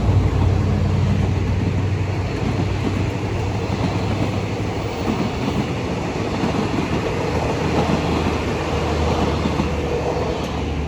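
Diesel-hauled Thai train passing close by. A low, steady locomotive engine drone fades in the first second or so, then the carriages' wheels run over the rails with a steady, dense noise, and a low drone returns near the end.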